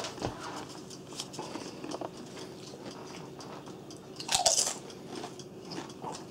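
Potato chips being bitten and chewed: a run of small crisp crunches, with one louder noise a little past the middle.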